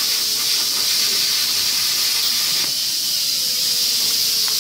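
Plasma cutter hissing steadily as its torch cuts sheet steel. The hiss thins a little past halfway through as the cut pauses, with the air still hissing.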